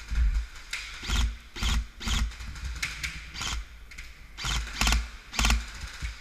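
Airsoft gun firing about a dozen single shots at an uneven pace of roughly two a second, each a sharp crack, emptying the magazine.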